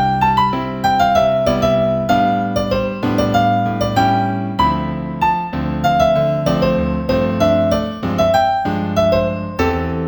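Background piano music: a melody of single notes over held chords, each note struck and then fading.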